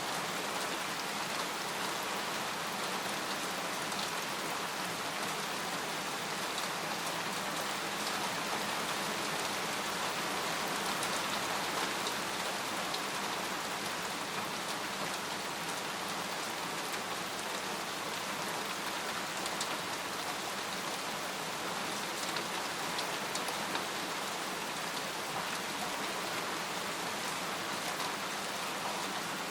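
Steady rain falling on a tent: an even hiss of rain with scattered individual drops ticking on the fabric.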